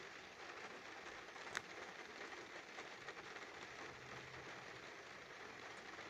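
Rain falling on a car's windshield, heard from inside the car: a faint steady hiss dotted with small drop ticks. One sharp click stands out about one and a half seconds in.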